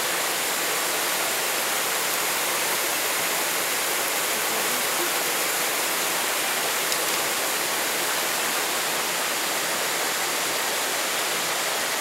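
Steady, even rush of water falling over a low waterfall tier into a pool.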